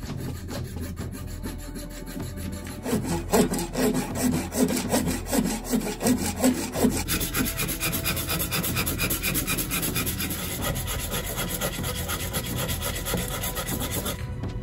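A coping saw cuts through a wooden rifle stock in short back-and-forth strokes, cutting out a skeleton opening. From about halfway through, a hand file takes over, filing the inside of the cut-out in rapid back-and-forth strokes.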